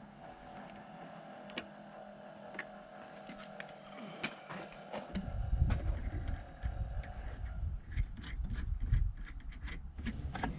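Hand work on metal parts: scattered sharp clicks and rubbing, faint at first. From about halfway a low rumble sets in, with a quick run of clicks and knocks.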